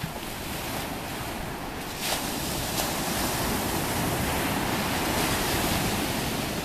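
Ocean surf breaking and washing up a sandy beach, a steady rush that swells louder about two seconds in as a wave breaks.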